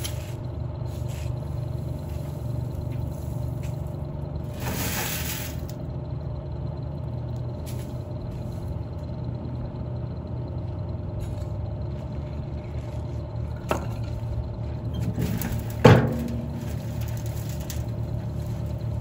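Compost being shovelled onto a wooden-framed sifting screen over a wheelbarrow, the dirt pouring and rattling through. There is a rush of it about five seconds in, a light knock, and then a sharp knock about three seconds before the end, the loudest sound, all over a steady low hum.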